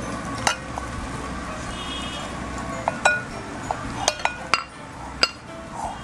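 Metal spoon clinking against a steel mixing bowl while stirring flour and yeast water into pizza dough: a series of sharp, irregular clinks, most of them in the second half.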